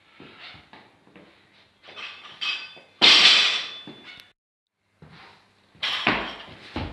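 A loaded barbell with rubber bumper plates dropped onto the gym floor: a loud crash about three seconds in, fading over a second with a metallic ring from the bar and plates. After a short break, heavy thuds around six seconds and again near the end as another lift is pulled and caught.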